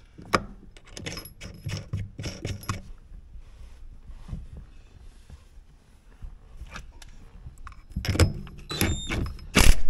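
Light metallic clinks and clicks of a steering-wheel hub adapter and its parts being handled and slid onto the steering column. The clicks come close together in the first few seconds, and there is a louder clatter just before the end.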